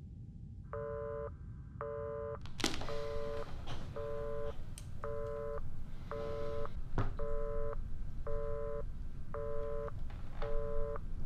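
Telephone busy tone heard over a phone line: a single low tone beeping on and off about once a second, ten beeps, with a few sharp clicks among them. The steady on-off cadence, half a second on and half off, is the German busy signal, the sign that the other party has hung up.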